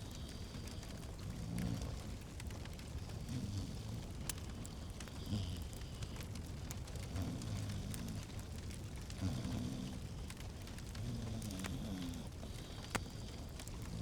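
Fireplace fire crackling, with scattered sharp pops over a steady low rumble. A soft low sound recurs every couple of seconds beneath it.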